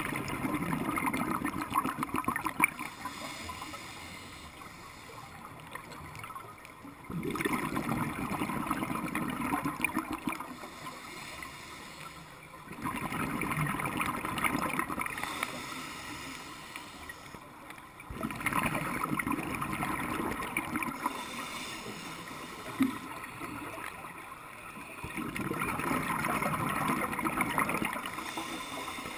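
Scuba diver breathing through a regulator underwater: five long gurgling rushes of exhaled bubbles, one every five to six seconds, with quieter stretches between breaths.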